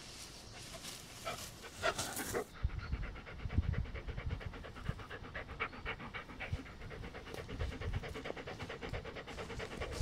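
Dog panting rapidly and evenly, starting about two seconds in, as a dog does when overheated in hot weather. A few brief rustling noises come before it.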